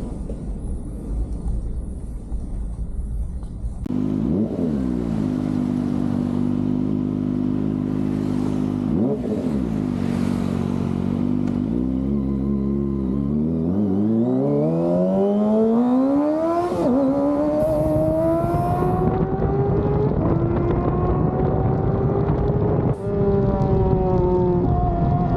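Kawasaki ZX-25R's 249 cc inline-four engine idling with two quick throttle blips, then pulling away and accelerating with a rising pitch, with short drops at two upshifts, the second near the end.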